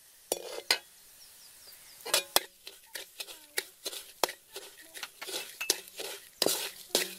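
Metal spatula scraping and clinking against a wok while stirring sugar into chopped garlic, a quick irregular run of scrapes from about two seconds in. Two sharp clinks come shortly after the start.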